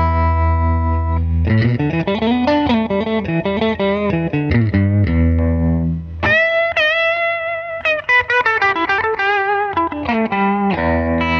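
Electric guitar playing, a 1991 Fender Stratocaster with Texas Special single-coil pickups run through a Vemuram Jan Ray overdrive into a Fender '64 Princeton Reverb amp. It alternates held low chords with quick single-note runs, and a bent, wavering high note rings out near the middle.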